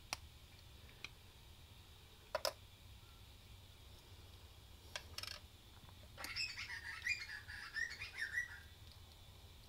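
A few sharp little clicks of a key fob's loose battery contact and plastic module being handled, then a bird chirping in a quick run of high notes for about two seconds, a little past halfway.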